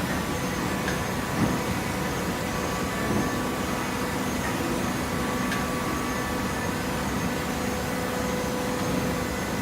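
Hydraulic fiber baler running with a steady machine hum, with a couple of light knocks in the first few seconds.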